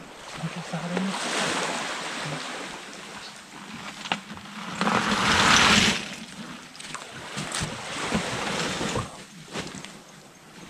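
A woven plastic sack rustling as a plastic bucket of hermit crabs in their shells is tipped into it. A loud rushing clatter about five seconds in, then scattered clicks of shells settling.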